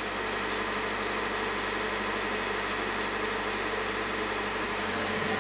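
Heavy truck idling: a steady, even mechanical hum that does not change.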